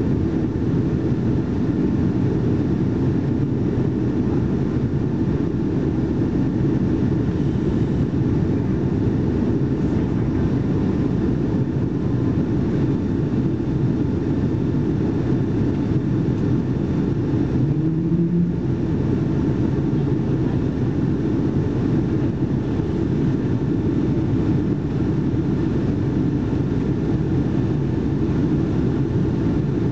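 Steady, low-pitched cabin noise of a Boeing 757-232 climbing after takeoff: engine and airflow noise heard from inside the passenger cabin.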